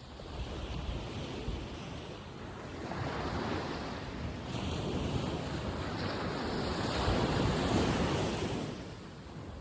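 Sea waves breaking and washing up the beach, swelling twice and loudest near the end, with wind buffeting the microphone.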